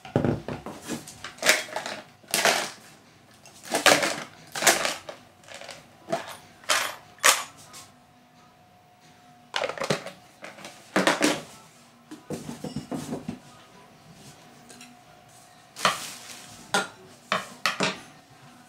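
Irregular knocks, clatters and rattles as a portable bag-closer sewing machine and its accessories (a plastic tool box, an oil bottle, a screwdriver) are handled and set down on a table, in several bursts with short quiet gaps between.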